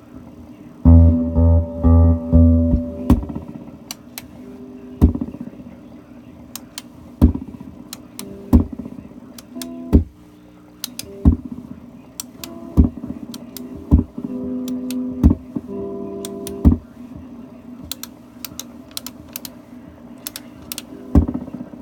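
Guitar played through a faulty Binson echo unit: a few heavy low notes, then single notes or chords struck about once a second, each ringing out with echo but no distinct repeats. A faint irregular ticking runs behind them, the ticking of a repeat that never properly comes through.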